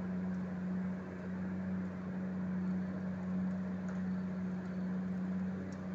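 Steady, even hum of road-works machinery engines running during night-time asphalt laying, with a wash of noise behind it.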